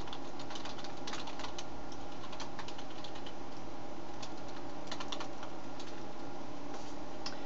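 Typing on a computer keyboard: irregular key clicks, some in quick runs, over a steady background hum.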